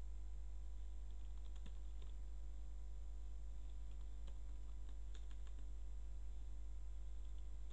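Computer keyboard keys clicking in a few scattered runs as a command is typed, over a steady low hum.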